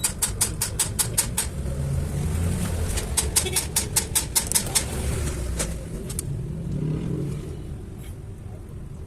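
Quick, evenly spaced metallic clicks, about six or seven a second, in two runs a couple of seconds apart, from a hand tool working on the car's rear axle, over a low steady rumble.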